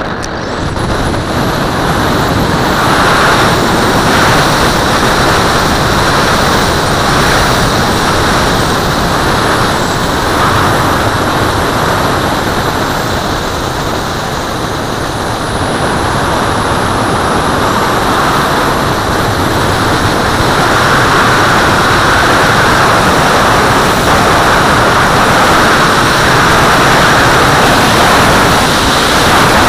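Air rushing over the onboard camera of an RC glider as it is launched and climbs on a towline: loud, steady wind noise that comes up abruptly at the launch.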